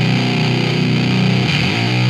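Electric guitar played through a breadboarded transistor boost and a ProCo RAT distortion pedal, giving a distorted, sustained tone. About three-quarters of the way through, the pitch slides and a new note rings on.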